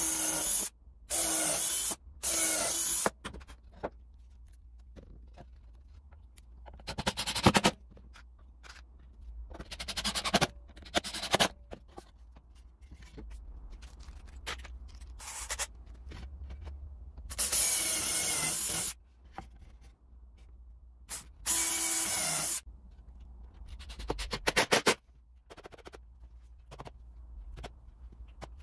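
Bosch cordless drill running in short bursts of about a second at a steady speed, boring into a pine board; three bursts come close together at the start and two more later on. Between them, knocks, clicks and scraping of the wood being handled on the bench.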